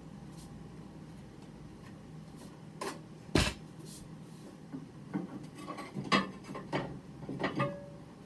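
Kitchenware being handled: scattered clinks and knocks of dishes, the loudest a sharp knock about three and a half seconds in, followed by a run of lighter clicks and taps.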